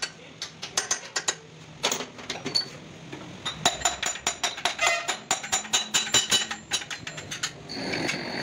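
Hand hammer striking a steel punch and a splined shaft to drive them into a housing on a truck engine block: sharp metal-on-metal taps with a ringing tail. They come sparse at first, then quick and rapid from about halfway through. Near the end the taps give way to a steady hiss with a thin high tone.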